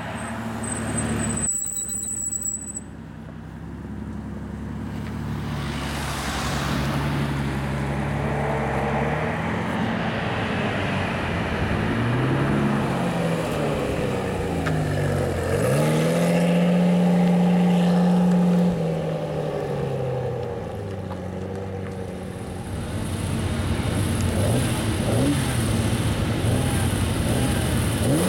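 Sports car engines accelerating and driving past in a run of clips: an Aston Martin DBS's V12 through a Quicksilver exhaust, and a Ferrari about halfway through. The engine notes climb with the revs, and the pitch drops sharply as a car passes, at about the middle and again at the end.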